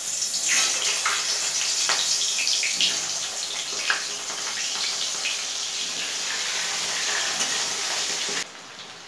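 Raw potato chunks sizzling as they fry in hot oil in a kadai, with a few sharp clinks of a metal spatula and pieces going into the pan. The sizzle drops away abruptly near the end.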